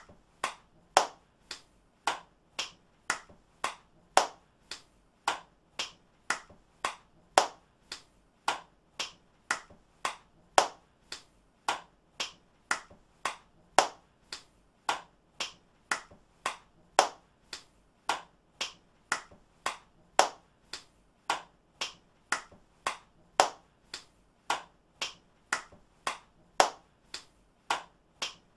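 Hand clapping: a recorded clap looped over and over at about two claps a second, some claps louder than others.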